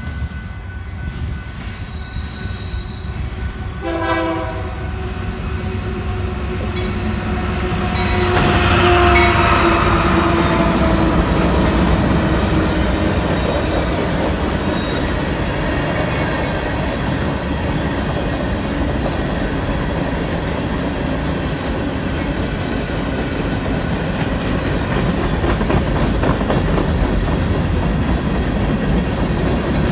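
A passing train's horn sounds briefly about four seconds in and again for several seconds as the train goes by, its pitch sliding down as it passes. The steady rumble and clickety-clack of rail cars rolling by continues after it.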